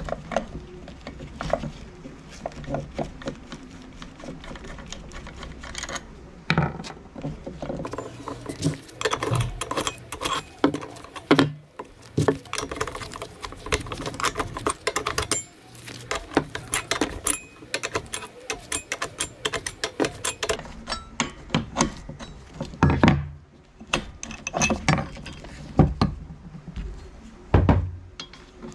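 Metal parts and hand tools clinking, clicking and knocking irregularly during hands-on work on a TL43 brush cutter's clutch, with a few heavier knocks near the end.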